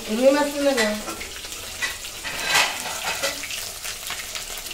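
Hissing kitchen noise with light clinks and clatter, swelling briefly about two and a half seconds in, with a short hummed voice-like note in the first second.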